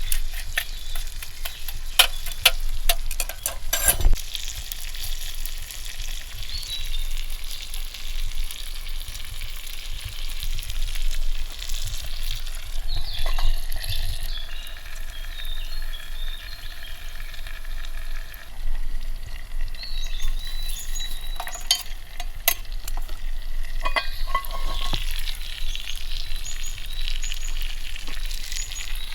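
Sizzling and crackling over a wood campfire: a steady hiss broken by sharp pops, the loudest about four seconds in and several more near the end. Small birds chirp in the background.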